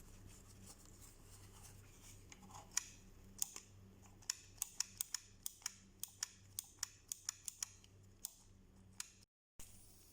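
A run of short, sharp clicks, a few at first and then about two or three a second, from the sticky TV-5 type power push switch of an Edirol MA-20D monitor being pressed over and over to work in the lubricant sprayed into it. A faint steady hum lies underneath.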